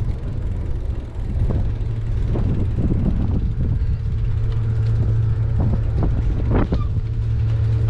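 Steady low hum of a docked boat's engine running, with wind buffeting the microphone and a few short knocks.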